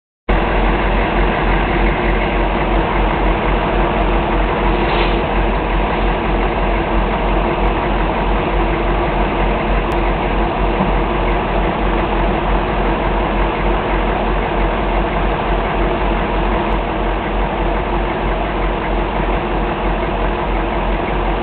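A vehicle engine idling steadily, with no change in speed.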